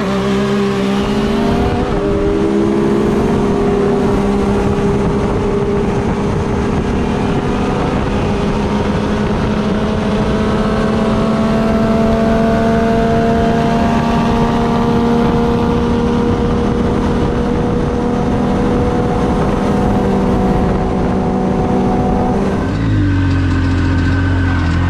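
Turbocharged three-cylinder side-by-side (UTV) engine running hard at high, nearly steady revs during a drag run, its pitch creeping slowly upward. About 23 seconds in the revs drop briefly, then climb again just before the end.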